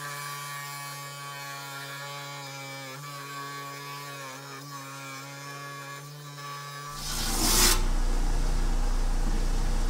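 Electric motor of a 10-inch Hi-Tech Diamond lapidary saw running with a steady hum. About seven seconds in, the diamond blade starts cutting into a trancas geode and a louder, noisier cutting sound takes over.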